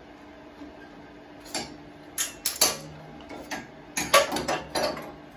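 Metal hand tools and clamps clanking on a steel welding table: a run of sharp clanks, some ringing briefly, loudest about four seconds in.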